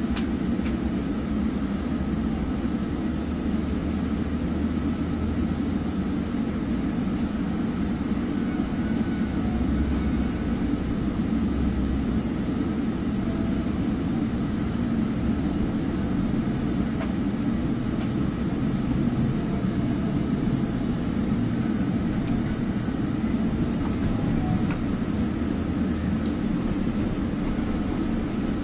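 Steady low rumble inside a Metrolink commuter train coach as it pulls out of the station and picks up speed, with a few faint clicks now and then.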